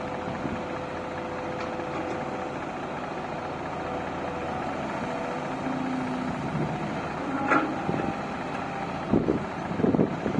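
Caterpillar excavator's diesel engine running steadily, with a steady tone in the first few seconds. A sharp metallic clank comes about seven and a half seconds in, and several loud knocks follow near the end.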